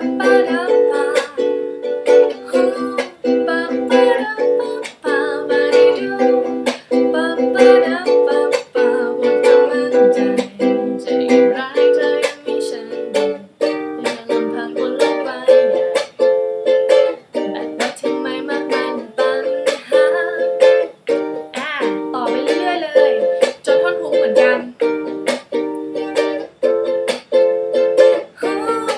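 Ukulele strummed in a fast, driving rhythm, the chords cut by sharp muted chunk strokes. The chords alternate between barre shapes, as in the key-changed part of the song.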